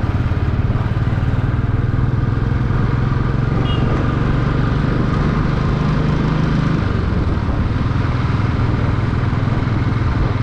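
Motorcycle engine running steadily, its pitch rising briefly a little past halfway and then settling lower.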